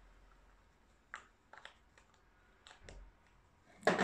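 A few faint, short clicks and rustles of small objects being handled, then a louder brief rustle near the end.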